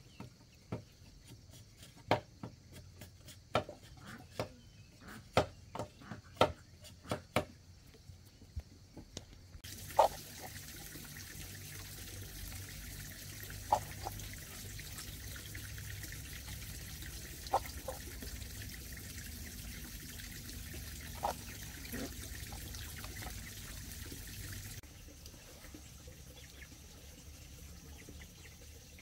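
Machete chopping at a wooden board: sharp, irregular strikes, about two a second for the first ten seconds. A steady even hiss follows for about fifteen seconds, with a few scattered knocks.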